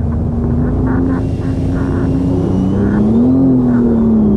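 Jet ski engine running at speed with a steady tone that rises briefly about three seconds in, over rushing water and spray off the hull.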